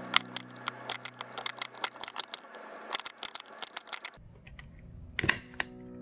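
Impact punch-down tool with a 110 blade snapping as it seats and trims twisted-pair wires into a 110 patch panel block: a run of sharp clicks and snaps, the loudest just after the start and about five seconds in. Background music plays underneath.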